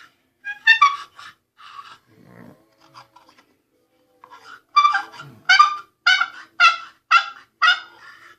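Hand-made wooden turkey box call being played: a few short notes, then from about halfway a run of about seven yelps roughly half a second apart. The call is still being tuned, its paddle not yet fitting the newly gouged sound chamber.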